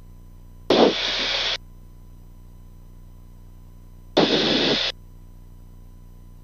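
Two short bursts of radio static on a Cirrus SR22's radio audio feed, each under a second and about three and a half seconds apart, starting and stopping abruptly with a click at the onset. A steady low electrical hum runs underneath.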